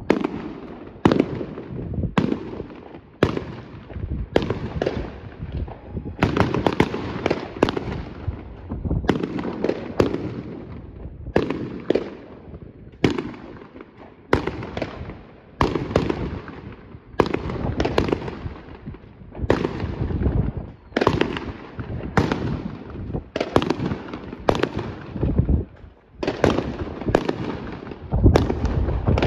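Aerial fireworks bursting in a steady series, a sharp bang a little more than once a second, each trailing off in an echoing rumble.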